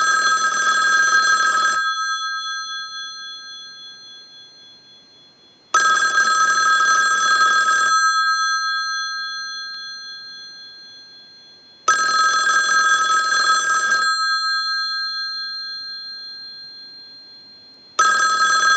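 Western Electric 2500 desk telephone's bell ringing on a test ring cycle: about two seconds of ringing every six seconds, each ring dying away slowly before the next. Its bell solenoids are adjusted for the strongest action.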